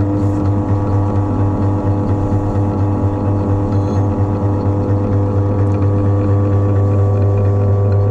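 Titan 750 W pillar drill's electric motor running steadily with no load and no bit in the chuck: a constant loud hum with several steady higher tones over it.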